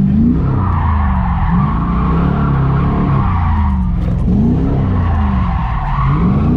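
LS3 V8 in a Nissan 240SX drift car, its revs rising and falling several times, with tyres squealing in a long slide from about half a second in to about four seconds, and again near the end.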